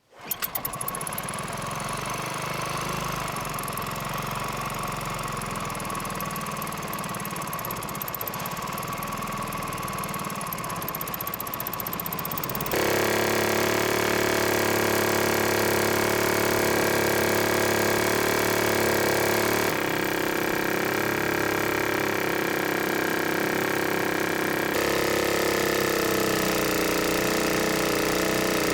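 Brand-new small four-stroke boat motor running, with a loud tap the owner can't place though there is plenty of oil in it. It steps up louder about thirteen seconds in, with small changes in pitch twice after that.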